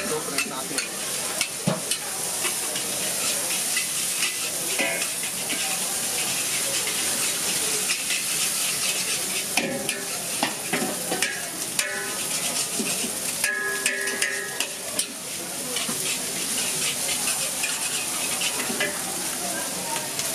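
Oil sizzling steadily in a hot wok as egg and shredded vegetables fry, with a metal ladle clinking and scraping against the wok now and then.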